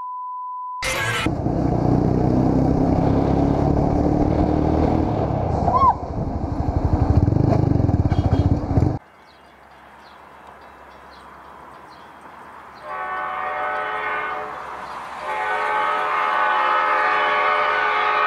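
Diesel commuter locomotive's air horn sounding two long blasts, the second longer. Before them a loud rumbling rush runs from about a second in and cuts off abruptly; a short steady beep sounds at the very start.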